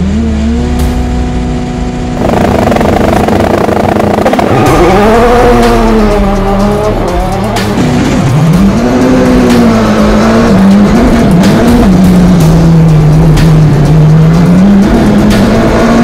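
600-horsepower turbocharged rallycross car engine heard from the cockpit: held at a steady launch-control rev, then revving up and down as the car launches and accelerates hard, the pitch climbing and dropping with each gear change. Sharp cracks punctuate the run.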